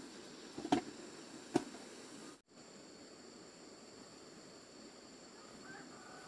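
Two short, sharp knocks about a second apart, then a steady faint hiss with a high, even whine. The sound drops out for an instant at an edit.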